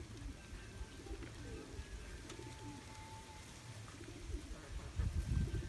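A dove cooing, low and repeated.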